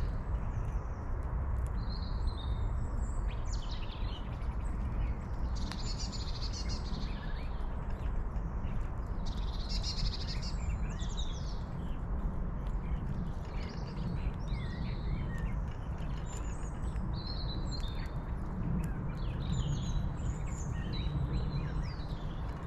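Small wild birds chirping and calling, in many short separate calls scattered throughout, over a steady low outdoor rumble.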